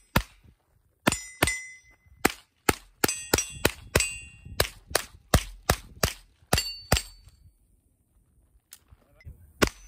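Semi-automatic AR-style rifle firing a fast string of about twenty single shots, roughly three a second, with metal targets ringing briefly after many of the hits. Near the end the shooting stops for about two seconds, then two more shots follow.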